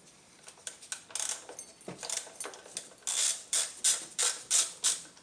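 Ratchet wrench clicking as it loosens the 10 mm bolt that holds an ignition coil down: a few scattered clicks, then about six quick back-and-forth ratchet strokes, roughly three a second, in the last two seconds.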